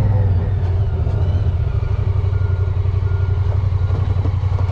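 2022 Honda Pioneer 1000-5 side-by-side's 999 cc parallel-twin engine running steadily at low revs as the machine creeps slowly across the lot.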